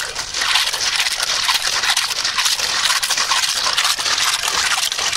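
Snails being scrubbed by hand in water in a plastic colander: their shells clattering and scraping against each other and the basket, with water sloshing and splashing.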